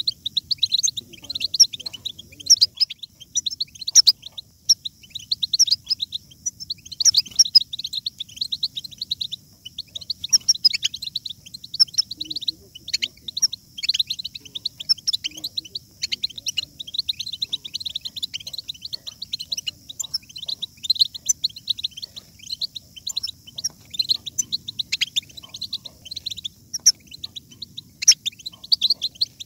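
European goldfinches twittering: a continuous stream of quick, high chirps and trills, overlapping.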